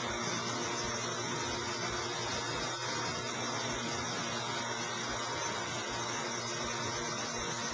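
Steady mechanical hum under a constant hiss, unchanging throughout, with no distinct knocks or events.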